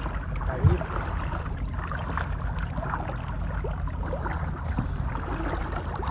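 Small boat's engine running steadily under way, with water washing along the hull and a single sharp knock under a second in.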